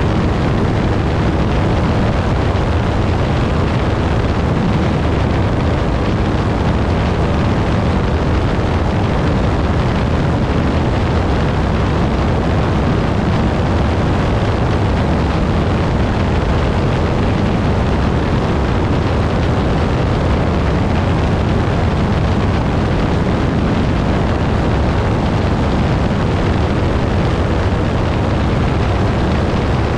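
Piper Pawnee towplane's piston engine and propeller running steadily at high power while towing a glider, a loud unbroken drone with wind noise over it.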